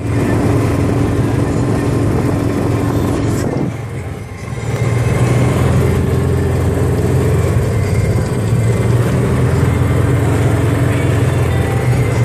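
A small vehicle's engine running steadily as it is driven. It eases off briefly about four seconds in, then picks up again.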